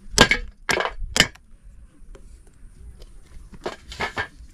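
A large kitchen knife cutting through the hard rind of a pale squash in short crunching strokes, about two a second: three strokes, a pause of about two seconds, then a few more near the end.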